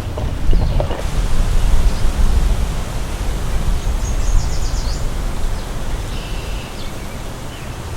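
Wind buffeting the microphone outdoors: a heavy, low rumbling rush that swells in gusts, loudest in the first couple of seconds and easing toward the end.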